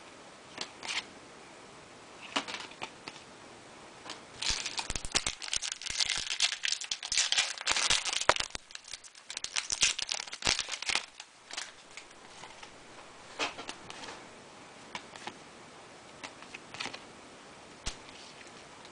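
Foil trading-card pack wrapper being torn open and crinkled, a dense run of crackling that starts about four seconds in and lasts roughly six seconds. A few scattered clicks of cards being handled come before and after it.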